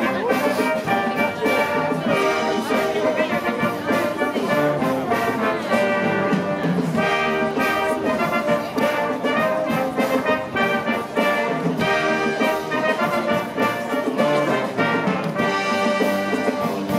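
Military band playing a sea-shanty arrangement, with cornets, trombones and euphonium carrying the tune over a steady beat.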